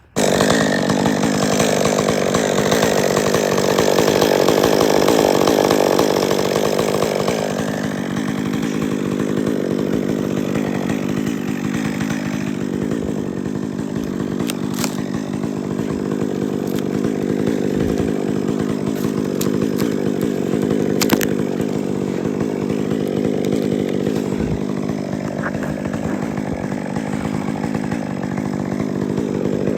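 Chainsaw running at high speed, its pitch sagging and recovering a few times.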